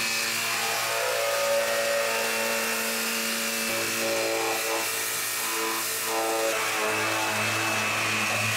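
Electric pressure washer running and spraying water: a steady hiss with a thin high whine. It starts and cuts off abruptly.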